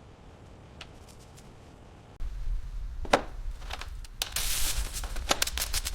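Faint room noise, then about two seconds in a low rumble sets in with a run of sharp clicks and a scraping hiss, the sounds of parts or tools being handled.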